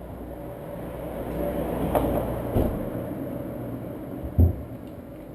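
A passing vehicle's low rumble swelling and fading, with a few sharp knocks, the loudest about four seconds in.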